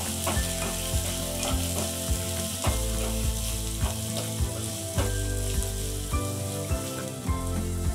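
Chopped onions sizzling in hot oil in a nonstick frying pan as they are stirred with a wooden spatula, the spatula knocking and scraping on the pan now and then.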